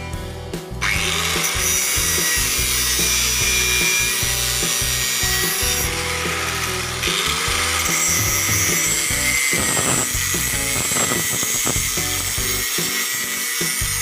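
Angle grinder grinding the edge of a steel plate, a harsh steady hiss of the disc on metal that starts abruptly about a second in, over background music.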